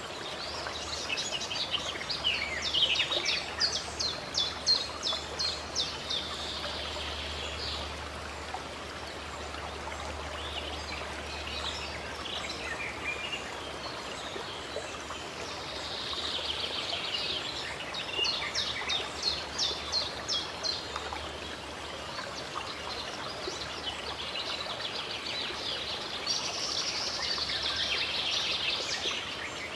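Birds singing in quick series of high chirps, in three bouts, over steady running water.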